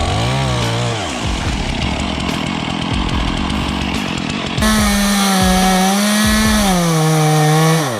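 Two-stroke chainsaw cutting into a tree, its engine pitch wavering as the throttle changes. After an abrupt change about halfway through, it runs at a steady high pitch that drops near the end as the chain takes load.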